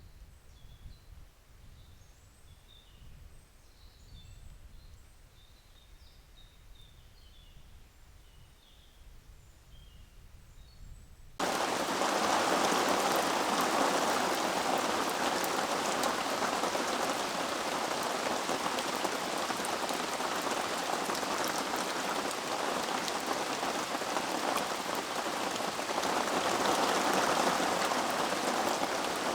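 Faint bird chirps over a low, quiet rumble, then an abrupt cut about eleven seconds in to steady, loud rainfall.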